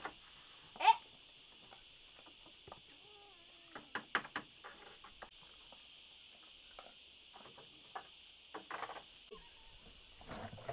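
Cats meowing around a feeding spot: one short, loud, rising meow about a second in, then lower, wavering meows around three to four seconds in, with a few wooden knocks.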